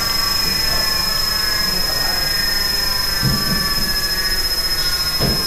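1988 Vulcan 2814 CNC milling machine running, a steady mechanical noise with a constant high whine, as coolant pours from its nozzle.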